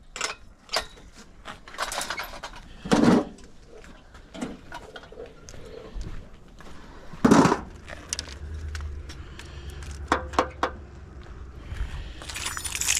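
Scattered clicks, knocks and rattles of fishing gear being carried and handled, with two louder thumps about three and seven seconds in.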